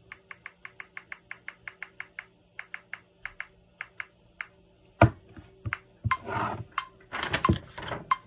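Light, quick clicks, about four a second and unevenly spaced, as a metronome is set to the next tempo. About five seconds in comes a loud knock, then rustling and handling noise with further knocks.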